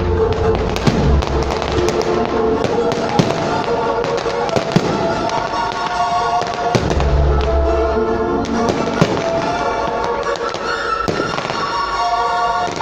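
Fireworks bursting and crackling, with sharp bangs standing out about five and nine seconds in, over the display's loud music soundtrack.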